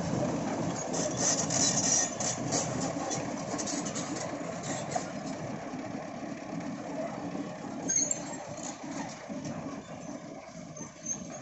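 Heavy excavator's diesel engine running, with scattered clatter in the first few seconds. It slowly gets quieter.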